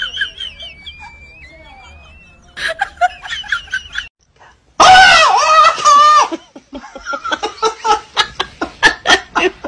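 A loud, high-pitched shriek with wavering pitch about five seconds in, followed by a man laughing in quick repeated bursts.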